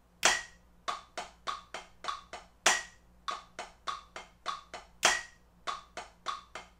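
Drumsticks on a rubber practice pad playing an accented 16th-note exercise with double strokes: a loud accent stroke about every two and a half seconds, with softer, even taps filling in between at a steady tempo.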